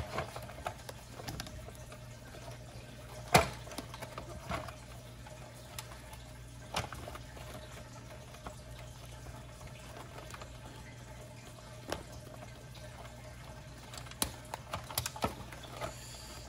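Scattered clicks and knocks of plastic parts and rustling of the foam and rubber skin as a Big Mouth Billy Bass's tail motor assembly is worked into the fish's body. The loudest is a sharp click about three and a half seconds in, and there is a flurry of small clicks near the end, over a steady low hum.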